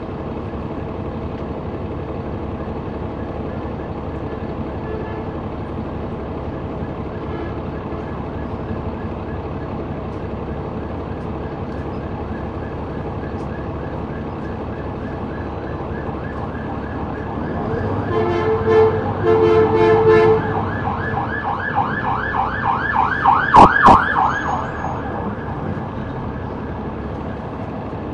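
A Caterpillar C-9 ACERT diesel engine runs steadily, heard from the rear seats of a Neoplan AN459 articulated bus. About 18 s in, an emergency vehicle's siren passes. It starts with steady horn-like tones, then yelps rapidly, loudest about 24 s in, and fades by about 25 s.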